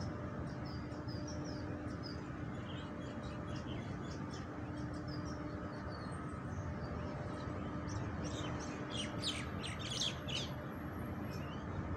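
Small birds chirping, with a quick flurry of chirps about nine to ten seconds in, over a steady low hum.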